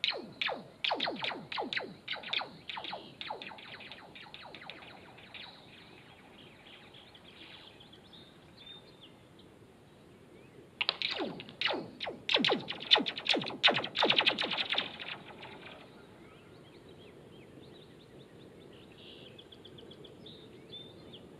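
Rocks skipping and sliding across thin ice, each bounce ringing out as a quick, falling, laser-like chirp. It is picked up with the microphone resting on the ice. Two runs of rapid bounces come, one at the start and one about eleven seconds in, each dying away over a few seconds.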